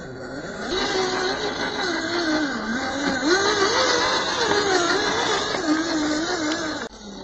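Electric motor and gearbox of an MN86K 1/12-scale RC crawler whining, the pitch wavering up and down with the throttle as it crawls through mud. The sound cuts off suddenly near the end.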